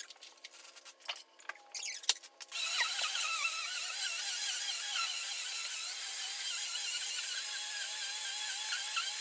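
Hoover vacuum cleaner switched on about two and a half seconds in after a few clicks and handling knocks, then running steadily on a rug with a motor whine that wavers in pitch.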